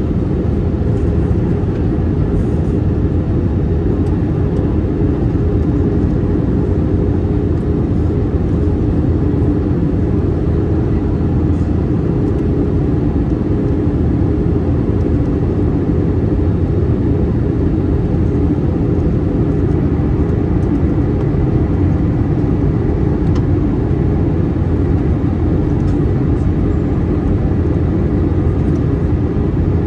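Steady cabin noise of an Airbus A321-231 in descent: the constant low drone of its IAE V2500 engines and rushing airflow, with a faint hum in it.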